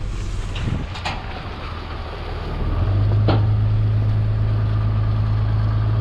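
Ram 3500's diesel engine heard from inside the cab while towing a trailer through a slow turn. Its low drone gets louder about three seconds in as it takes more power. Two light clicks are heard, one about a second in and one a little past three seconds.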